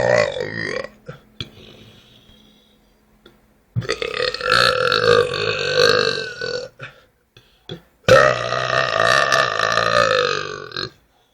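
A person burping on purpose. One burp tails off at the start, then come two long, drawn-out belches of about three seconds each, with a few short clicks between them.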